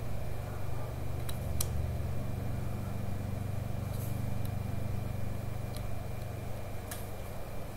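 Steady low hum of a computer fan, with a few faint, scattered keystroke clicks as code is typed.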